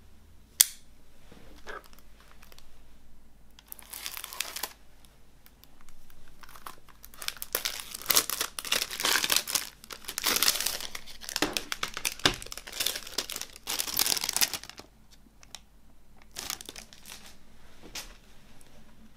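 Clear plastic shrink wrap being torn and crinkled off a CD jewel case by hand. A sharp click comes about half a second in. Then come bursts of crinkling and tearing, densest through the middle, with a few last rustles near the end.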